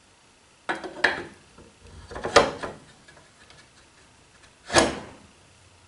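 A 36-inch keyed steel shaft scraping as it is pushed down through a steel shaft collar and the wheel's wooden hub. There are three short scrapes: about a second in, about two and a half seconds in, and a sharper one near the end.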